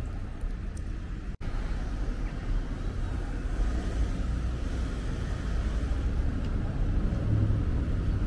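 Steady low rumble of road traffic running along a town high street, with a brief break about a second and a half in.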